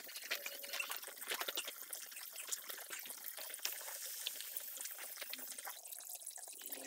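Water from a garden hose pouring and trickling into a shallow tarpaulin pond liner as it fills, a busy patter of small splashes, with bare feet stepping through the water.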